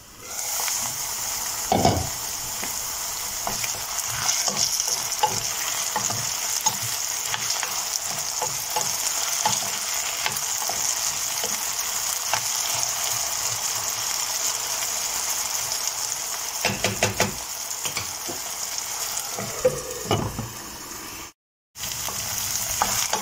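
Diced potatoes and onions sizzling steadily in oil in a frying pan, with a few knocks from a spoon stirring against the pan, about two seconds in and again near the end.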